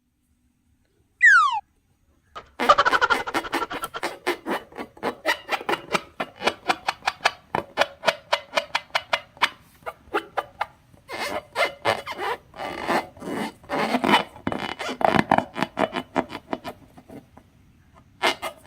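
Slime being squeezed and worked by hand, giving a fast run of wet crackling pops and clicks that pauses briefly twice. It is preceded by one short falling whistle-like sound.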